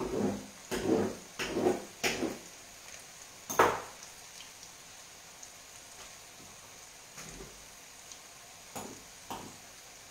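Frappe pastry frying in a pan of hot oil with a steady sizzle. A cluster of knocks and clatters in the first two seconds gives way to one sharp click about three and a half seconds in, with a few fainter knocks later.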